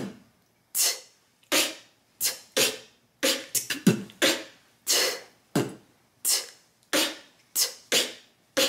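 Beatboxing played slowly: a pattern of separate mouth-made drum sounds, a B kick drum, T hi-hat and K snare, with the snare made as an inward K by breathing in while the tongue snaps down. The hits come about two a second, with a few quicker ones bunched together a little before the middle.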